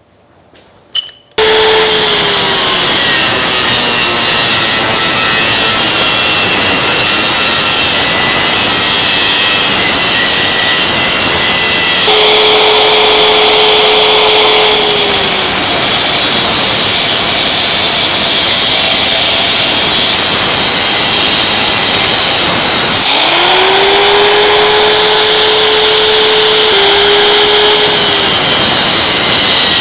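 Angle grinder with a cutoff disc cutting and grinding a steel hammer head clamped in a vise. It starts about a second and a half in and runs loud and continuously, with a whine that dips and recovers a few times.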